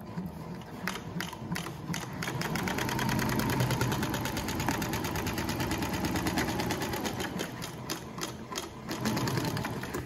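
Yamata FY-335A walking-foot cylinder-bed industrial sewing machine stitching around the brim of a hat, a fast even run of needle strokes. It picks up about two seconds in, is loudest through the middle, eases near the end and stops.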